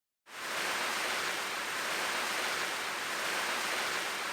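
A steady hiss of static noise starts abruptly out of dead silence about a third of a second in and holds even, with no rhythm or tone in it.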